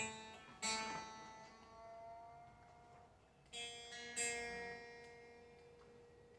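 Telecaster's B string plucked several times and left to ring, with a slow upward glide in pitch after the first pluck as the B-bender pulls the string up; the bender's travel is being set for a whole-step bend. Plucks come about half a second in and again twice around the middle, each fading away.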